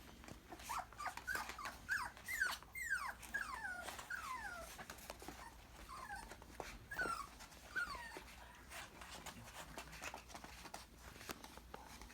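Miniature Australian Labradoodle puppies, five weeks old, whimpering: a run of short, high, falling whines, many in quick succession in the first few seconds, then fewer until they stop about eight seconds in. Light clicks and taps come in between.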